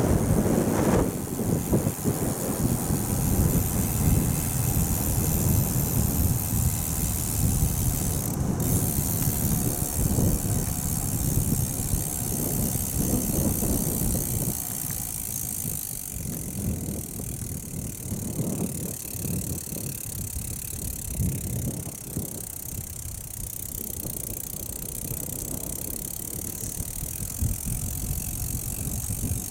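Wind buffeting the microphone of a camera on a moving bicycle, a gusting low rumble mixed with tyre noise on the road. It eases somewhat about halfway through.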